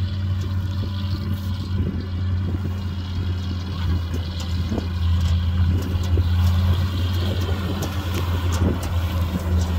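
A 1973 Chevrolet C60 grain truck's engine running as the truck drives slowly, a steady low drone that grows somewhat louder about halfway through as it comes closer.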